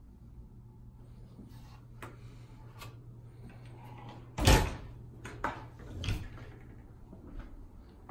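A door shutting with one loud thud about halfway through, among a few lighter knocks and bumps, over a low steady hum.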